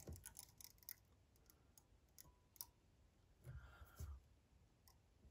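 Faint, sparse clicks of a metal bodkin against the hook and fly-tying vise while resin is worked onto the fly, with a short rubbing sound about three and a half seconds in as the rotary vise head is turned over.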